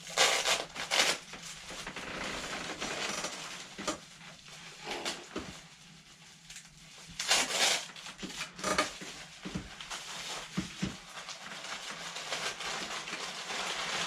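Packaging wrapping being handled and pulled off, in rustling, crinkling bursts that are loudest near the start and about halfway through, with a few light knocks in the second half.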